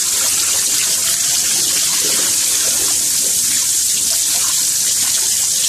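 Tap water running steadily into a metal bowl as whole hilsa fish are rinsed by hand, the stream splashing over the fish.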